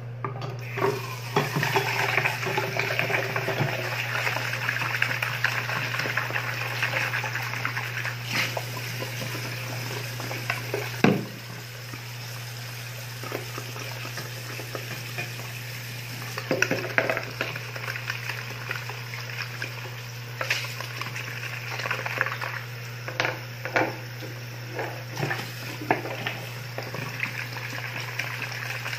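Tap water running for about ten seconds, stopping with a loud knock; afterwards scattered clinks and taps of a stainless steel bowl being handled, over a steady low hum.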